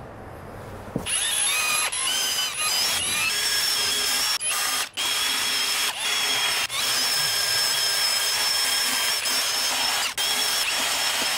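Cordless drill spinning a foam polishing pad against an alloy wheel, buffing out scratches with polishing compound. A steady motor whine starts about a second in and drops out briefly several times.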